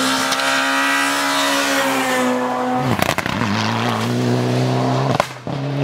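Rally car engines at full throttle: a Škoda Fabia S2000 held at high revs for about three seconds, then, after an abrupt change, a Mitsubishi Lancer Evolution accelerating hard, its note dropping briefly for a gear change near the end.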